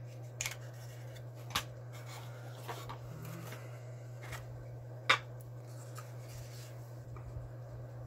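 Black cardboard Zippo gift box being handled and opened: the lid sliding and rubbing off, with a few light taps and clicks, the sharpest a little past a second and about five seconds in. A steady low hum runs underneath.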